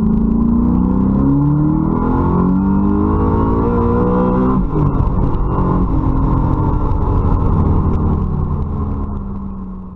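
Audi S8's twin-turbocharged 4.2 L 40-valve V8 on E85 accelerating hard under full throttle, heard from inside the cabin. The engine note climbs steadily in pitch towards the redline for about four and a half seconds. Then it breaks off abruptly as the revs drop, and runs on lower and steadier, fading near the end.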